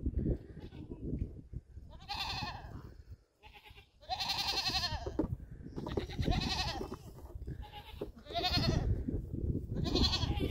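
Goat kids bleating: about five high, quavering calls roughly two seconds apart, the one about four seconds in the longest, over a steady low rumble.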